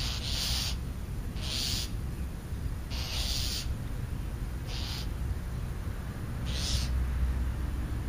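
Crow cawing: five harsh calls at uneven intervals.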